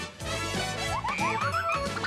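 Cartoon opening theme music, lowered in pitch, with a quick run of short rising slides about a second in.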